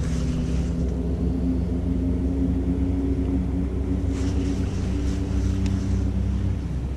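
A distant engine droning at a steady pitch that fades out about six and a half seconds in, over low rumble on the microphone. There is light rustling from handling a rain jacket and the fishing reel.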